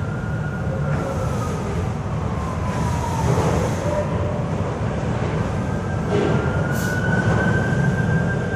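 Electric reach truck's motor whine over a steady low hum as it handles a hanging forklift mast. The whine glides down in pitch over the first few seconds, then rises again in the second half.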